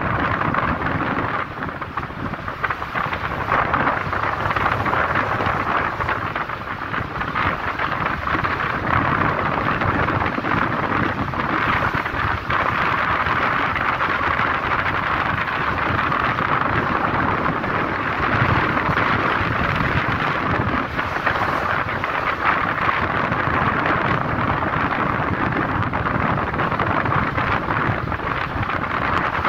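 Steady rush of wind on the microphone of a moving vehicle, mixed with road and engine noise, with small swells in level.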